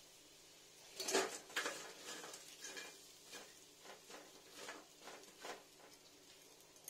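A string of light clinks and taps as small fried fish are tipped and moved onto a steel plate, the loudest knock about a second in and softer ones after it.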